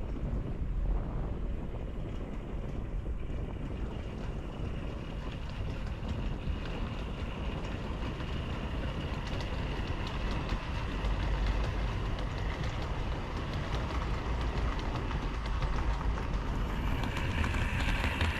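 Model train running along the layout's track, picked up close by: a steady rumble of wheels and motor with fine ticking, growing brighter and louder from about halfway through.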